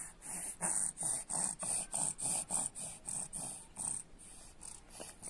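A baby's quick, breathy huffs close to the microphone, about three a second, easing off near the end.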